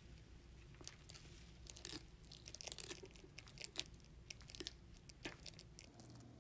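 Bearded dragon chewing a superworm: faint, irregular crunching clicks, a few louder ones between about two and four seconds in and another near five seconds.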